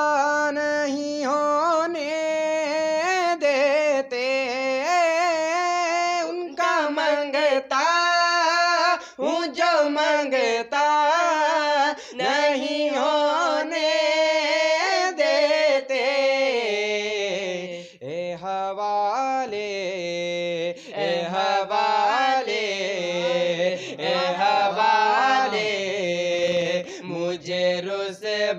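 A boy singing an Urdu naat unaccompanied, with long drawn-out notes that waver in pitch and brief pauses for breath.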